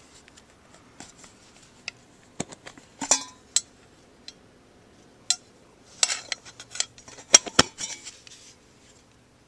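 A Zippo lighter being handled: scattered sharp metallic clicks and clinks, with a busier cluster about two-thirds of the way through.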